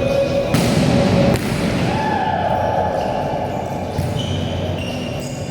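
Indoor volleyball game: a ball strike about half a second in opens a loud burst of noise that lasts under a second, with another knock about 4 seconds in, echoing in a gym.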